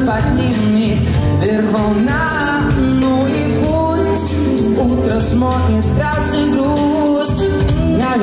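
A male vocalist singing a pop song into a handheld microphone, his melody sliding between notes, over backing music with a steady bass line and beat.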